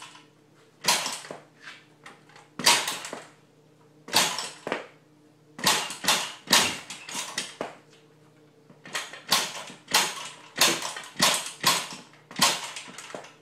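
Repeated kick-start strokes on a 110cc pocket bike: about twenty sharp clacks in groups of two to five with short pauses, and the engine never catches and runs.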